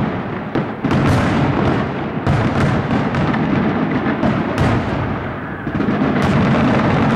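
Fireworks display at its height: a dense, continuous barrage of aerial shell bursts, deep overlapping booms with sharp bangs and crackle on top. It eases briefly about five seconds in, then the bursts pick up again.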